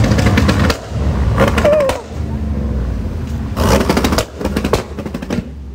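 Cruise traffic driving slowly past, led by a lowered Chevrolet Silverado pickup, with a steady low engine rumble and several short spells of rougher, crackly noise.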